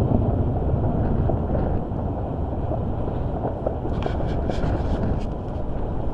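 Strong wind buffeting the microphone, a steady low rumbling rush, with a few faint crackles about four seconds in.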